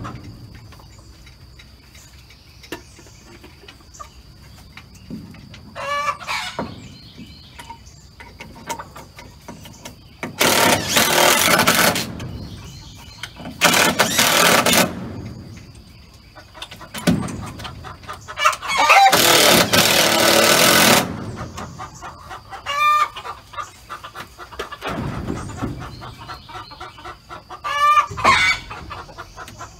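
Three bursts of a cordless drill driving screws into a wooden roost-bar support, each a second or two long and the loudest sounds, with chickens clucking and calling now and then in between. A faint steady high tone runs underneath.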